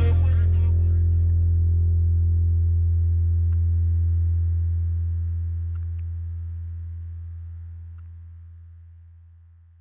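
A single low bass note of the song, held steady for about four seconds after the last beat and then fading out slowly.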